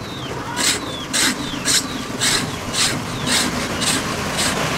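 Rhythmic rasping strokes, about two a second, like a hand file worked back and forth on steel, with faint high chirps between the strokes.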